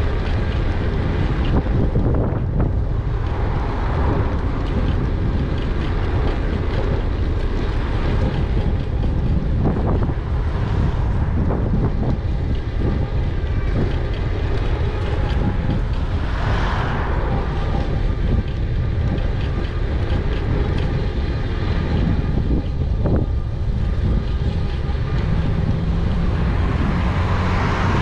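Wind buffeting the microphone of a GoPro Hero 8 on a moving e-bike, a steady low rumble with scattered rattles and knocks from the bike riding over the road.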